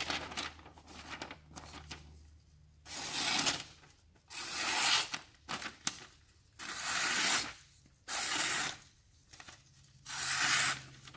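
The VG10 blade of a QSP Mamba folding knife, on its factory edge, slicing through phone book paper. There are about five separate slicing strokes, each lasting under a second, with short pauses between them.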